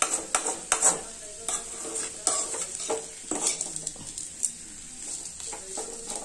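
A metal spatula stirring and scraping spice-coated baby potatoes around an aluminium kadai, giving quick scrapes and knocks at uneven intervals over a steady sizzle of frying oil.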